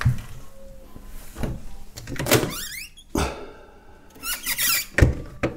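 Under-counter fridge being opened and handled: a string of thunks and knocks from the door and its plastic fittings, with a rising squeak about two and a half seconds in.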